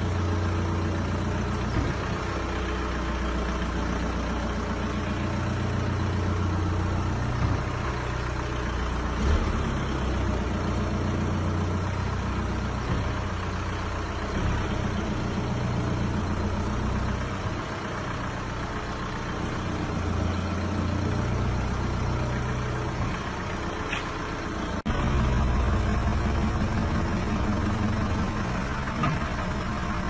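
A 1999 Audi A3's engine idling steadily, heard close to a front wheel as the car creeps, with a few light knocks: the clunk under braking that the owner is trying to trace. Near the end the engine grows a little louder.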